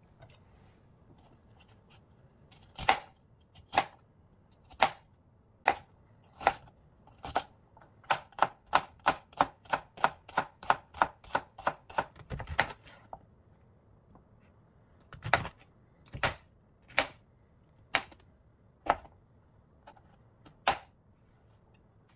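Kitchen knife chopping on a cutting board: single cuts about a second apart, then a quick run of chops, a dull thump, and a few more spaced cuts.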